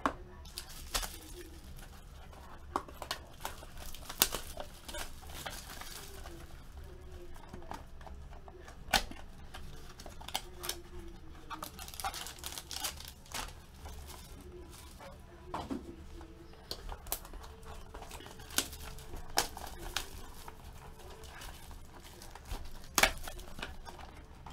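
Sports-card packaging being handled and opened by hand: plastic wrapping crinkling and tearing, with scattered sharp ticks and clicks.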